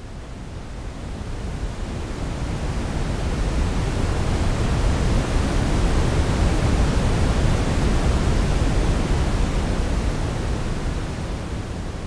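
Simulated ocean wave: a wash of hiss-like noise, heaviest in the low end, that slowly swells to a peak about halfway through and then ebbs away.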